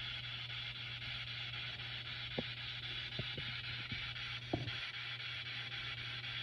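Steady static-like hiss over a low hum, with a few faint clicks scattered through the middle.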